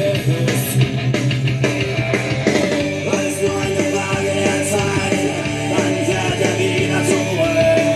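A German-language rock song with sung vocals, playing loud through a Gravastar Crazy Cool Bluetooth speaker turned to its loudest setting.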